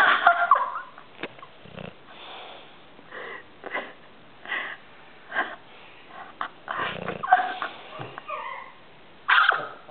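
A sleeping pet snoring: irregular wheezy, snorty breaths, some carrying a whistling, sliding pitch, the loudest about seven seconds in.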